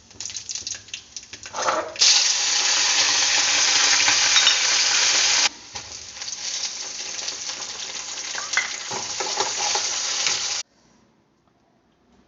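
Food sizzling and spitting in hot oil in a pan while it is stirred. The sizzle jumps much louder about two seconds in, eases a few seconds later, and cuts off suddenly near the end.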